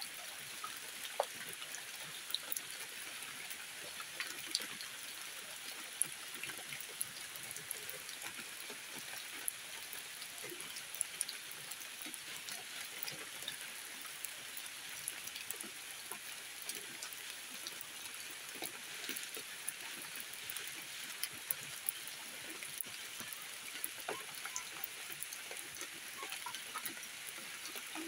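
Steady light rain falling on the leaves of a tree canopy: an even hiss with many scattered drips ticking.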